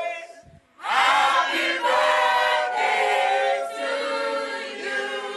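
A group of people singing together unaccompanied, many voices at once. The sound drops out briefly about half a second in, then the singing comes back in full.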